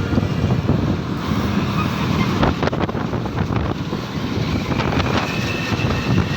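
Wind buffeting the microphone over steady vehicle and road noise, dense and rumbling with scattered knocks.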